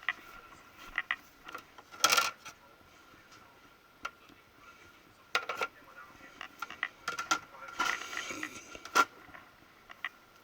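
Small hard objects clinking and clattering as they are handled and set down, in irregular bursts with a louder rattling clatter about two seconds in. A faint steady high tone runs underneath.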